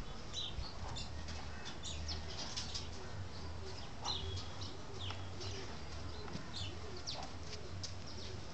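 Birds chirping in short, scattered calls, with low cooing in the second half, over a steady low hum.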